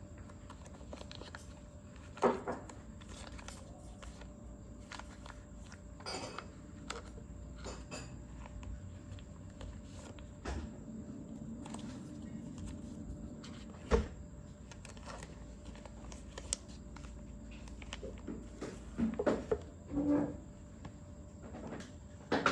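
Packaging being handled during an unboxing: scattered clicks, taps and rustles of box and wrapping, with a busier run of knocks near the end.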